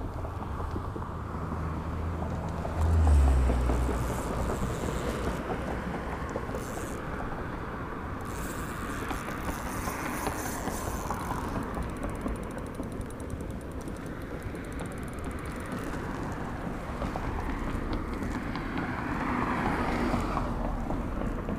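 Road traffic: a steady hiss of tyres, with cars swelling past a couple of times. A low thump about three seconds in.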